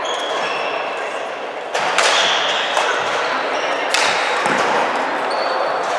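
Badminton racket strikes on a shuttlecock, two sharp hits about two seconds apart that ring on in a large sports hall. Short high shoe squeaks on the wooden court and a steady hall murmur run underneath.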